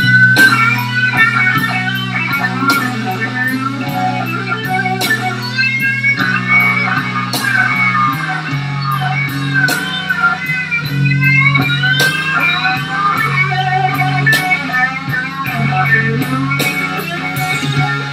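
Live slow blues: electric guitar soloing with bent notes over bass and drums.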